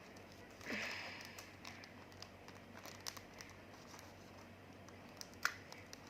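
Faint crinkling of a plastic crispack sleeve being handled, with a brief rustle about a second in and a single sharp click a little before the end.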